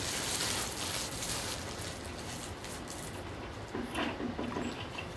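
A rustling hiss for the first couple of seconds, then a few quick gulps as a man drinks soda from a plastic bottle, about four seconds in.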